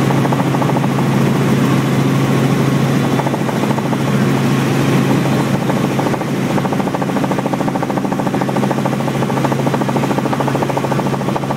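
Robinson R44 Raven II helicopter in flight, heard from inside the cabin: a loud, steady drone of engine and rotors with a strong low hum.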